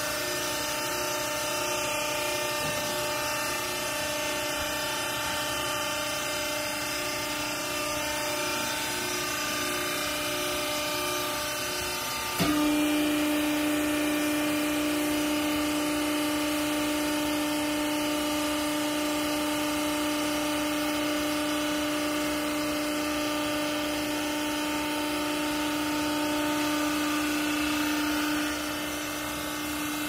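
Y82 vertical hydraulic baler's electric motor and hydraulic pump running with a steady hum. About twelve seconds in, a click is followed by the tone dropping lower and growing louder as the pump comes under load driving the press platen down onto the used clothes.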